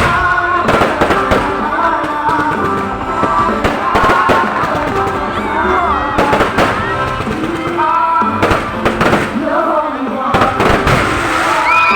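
Fireworks going off in many sharp, irregular bangs, several a second, over loud music with a melody.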